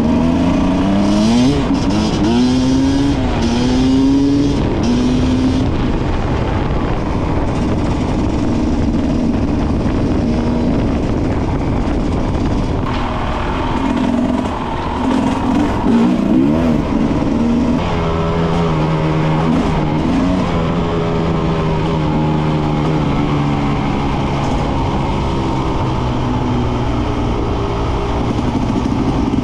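Enduro motorcycle engine under way. Its pitch rises and drops several times in the first few seconds as it shifts up, it revs up and down briefly about halfway through, then it settles into a steady cruise.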